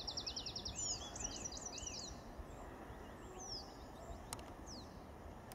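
A small songbird sings a fast trill of high repeated notes for about the first two seconds, then gives scattered short high chirps. Under it runs a steady low outdoor rumble of ambient noise.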